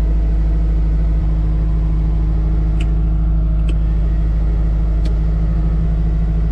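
Skid steer's engine running steadily, heard from inside the cab with the air conditioner blowing. A few faint clicks come as the overhead control knobs are turned.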